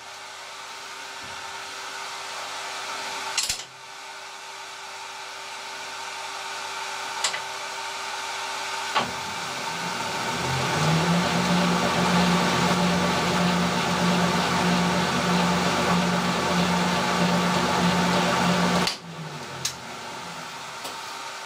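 Old Colchester screw-cutting lathe running under power while cutting a metric thread, with a few sharp clicks from its controls. From about ten seconds in it is louder, with a pulsing hum under the running, then cuts off suddenly near the end as the drive is stopped.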